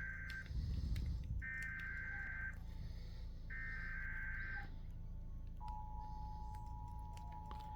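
Emergency Alert System SAME header: three bursts of warbling data tone, each about a second long with one-second gaps, the first already under way. A little past halfway the steady two-tone EAS attention signal begins, announcing a severe thunderstorm warning.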